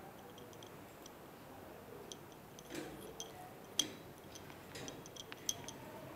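Faint, irregular light clicks and ticks over quiet room tone, with a sharper click about four seconds in and another about a second and a half later.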